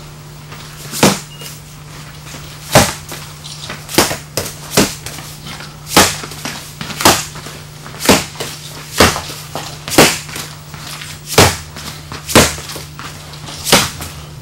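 Foam-padded training baton striking hard, about a dozen sharp smacks roughly one a second, as strikes are thrown at various angles from the ground.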